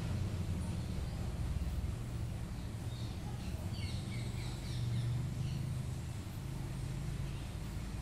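Outdoor ambience: a steady low hum underneath, with a bird chirping several times in quick succession partway through.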